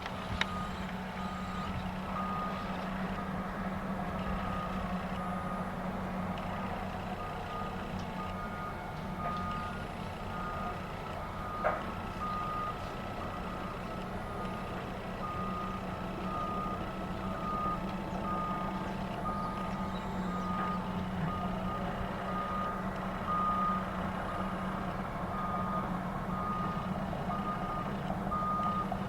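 Backup alarm on heavy construction equipment, beeping over and over in a regular rhythm above the steady low drone of diesel engines. A single sharp knock comes about halfway through.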